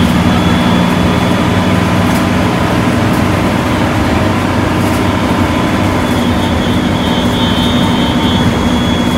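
Intercity bus's diesel engine running steadily under way, heard from inside the cabin along with road noise. A thin high whine sits over it and grows stronger in the second half.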